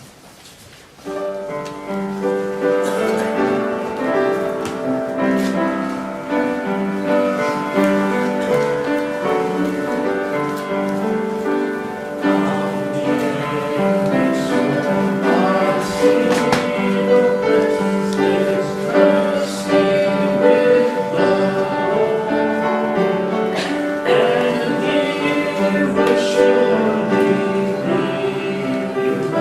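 Congregation singing a slow hymn with piano accompaniment, in held chords; it begins about a second in.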